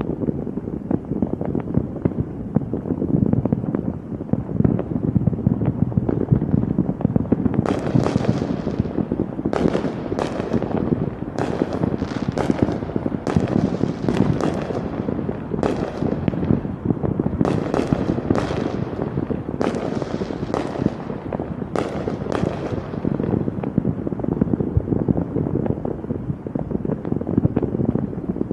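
Fireworks going off in a continuous barrage of rapid crackling pops, with a run of about a dozen sharper, brighter bangs from about a quarter of the way in until past three-quarters.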